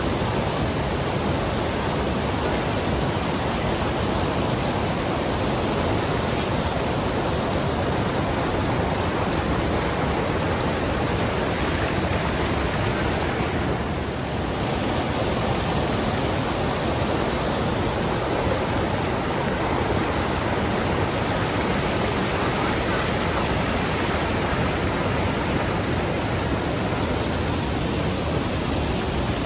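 River water rushing over rocks in rapids and a low cascade, a steady even rush that dips briefly about halfway through.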